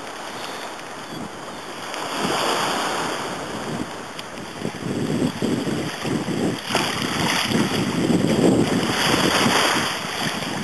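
Small waves washing in shallow water at the shore, with wind gusting on the microphone; the sound grows louder about two seconds in and rises and falls unevenly.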